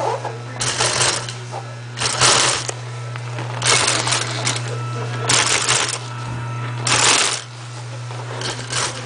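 Industrial sewing machine stitching a vinyl seat cover in about six short runs of about half a second each, stopping and starting as the material is guided, over a steady motor hum.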